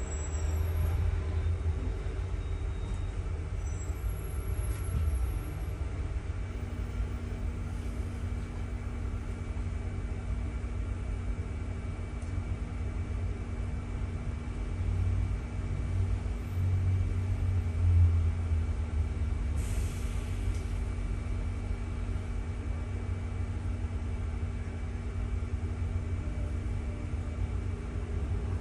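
Inside a double-decker bus on the move: steady low engine and road rumble with a constant hum, swelling louder around the middle, and a short hiss about twenty seconds in.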